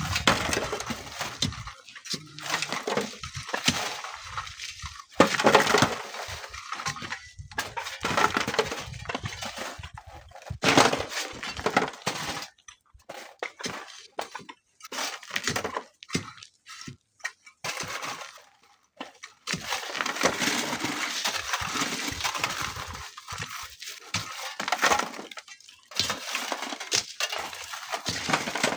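Sand and stones sliding and pouring down a dry sand cliff face as it is dug away, in irregular rushes with short pauses.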